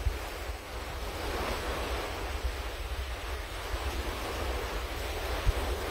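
Ocean surf breaking and washing up the beach, with wind gusting across the microphone in a low rumble.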